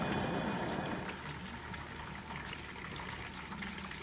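Propane burner of a turkey fryer hissing, then falling away about a second in as the tank valve is closed and the flame goes out. A softer steady hiss from the pot of hot frying oil remains.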